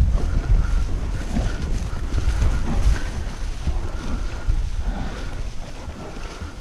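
Wind buffeting the microphone of a horse-mounted camera as the horse moves through pasture: a heavy, uneven low rumble that eases slightly near the end.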